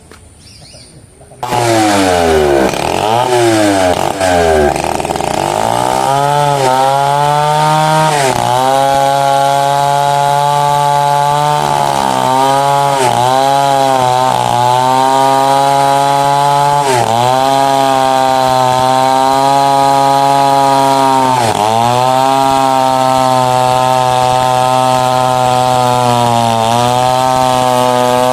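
Two-stroke chainsaw that comes in suddenly about a second and a half in and is revved up and down a few times. It is then held at full throttle, its pitch sagging briefly every few seconds as the chain bites into mahogany wood.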